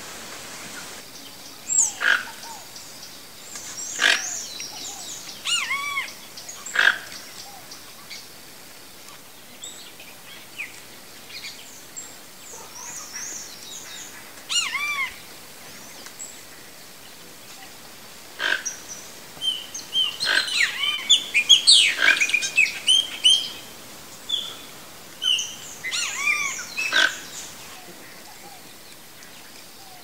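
Toco toucan giving harsh, croaking calls at irregular intervals of a few seconds, with a dense run of calls about two-thirds of the way through. High chirping from other birds is mixed in.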